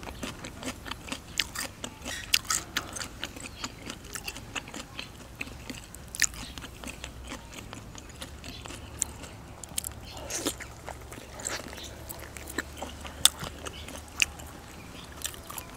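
Close-miked eating sounds: biting and chewing roe-filled squid and raw bitter gourd, a string of crisp crunches and wet mouth clicks at an uneven pace.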